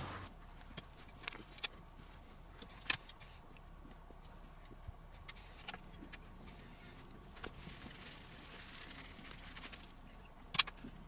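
Faint, scattered clicks and taps of small parts being handled as a circuit board is fitted back into a Nakamichi 1000ZXL cassette deck's front panel, with one sharper click near the end.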